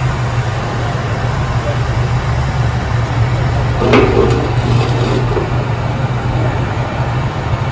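Steady low mechanical hum of the hydraulic power driving a C-47's main landing gear down during a gear swing, with a sharp clunk and a short rattle about four seconds in.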